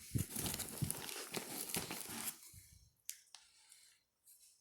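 Plastic packaging crinkling and rustling as it is handled, dying down after about two seconds to a few faint clicks.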